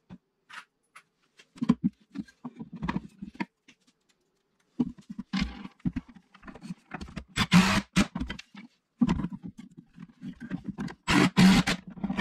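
Wooden drawer runner knocked and shuffled into place, then a DeWalt cordless impact driver running in short spells to drive screws into it; the loudest runs come about two-thirds of the way through and near the end.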